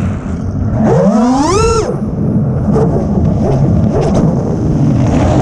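FPV racing quadcopter's motors and propellers, 6S-powered, whining as the throttle is punched: the pitch climbs steeply from about half a second in and drops off just before two seconds. Then low throttle, with rough wind noise over the onboard microphone as the quad flips.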